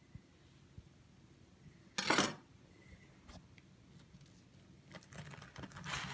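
A short metallic clatter about two seconds in, as a bread knife is set down on the cutting board. Near the end come soft scattered rustles and taps as slices of crusty homemade bread are handled.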